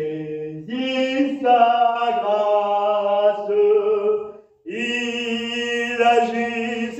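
A man singing a line of a French gospel hymn, holding long notes that step up in pitch, with a short breath about four and a half seconds in.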